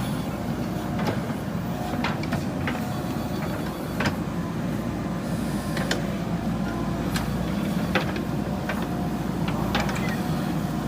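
JCB 3DX backhoe loader's diesel engine running steadily, with about ten sharp, irregular knocks and clanks spread through the run.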